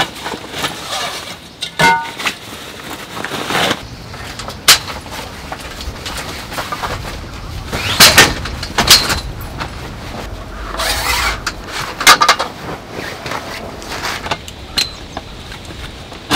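Tent being pitched by hand: rustling of tent fabric broken by scattered knocks and metallic clinks from poles and fittings.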